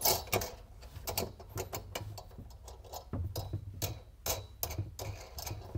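Wing nuts being threaded by hand onto the brew head's mounting bolts to clamp its bracket, making a run of small irregular clicks and taps.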